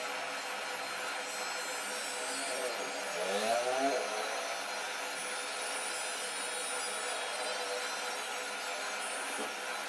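Cordless electric beard trimmer with a number 4 guard comb running with a steady buzz as it cuts the beard along the jaw and neck. A brief wavering sound rises over the buzz about three to four seconds in.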